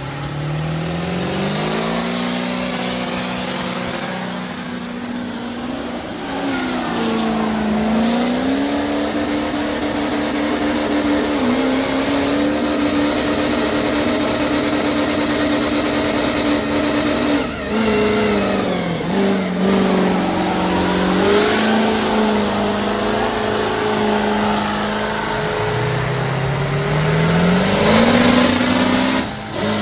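Lifted pickup trucks' engines revving hard during burnouts, held at high revs with dips and climbs and a rising rev near the end, over the hiss of spinning tyres.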